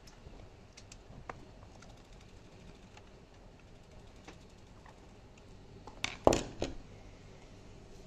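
Small scattered clicks and taps from handling a Mercedes R107 speedometer and putting its casing screws back in, with a short cluster of louder clicks and knocks about six seconds in.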